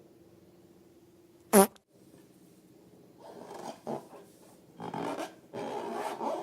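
A short, loud fart-like sound about a second and a half in, followed by irregular rubbing and scratching noises.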